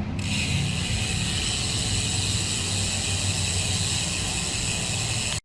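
Steady wind and tyre noise from a road bicycle being ridden, heard on the ride camera: a low rumble under a steady high hiss.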